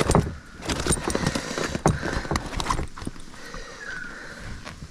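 Irregular knocks, clicks and clatter on a kayak as a freshly landed Australian bass is handled and measured.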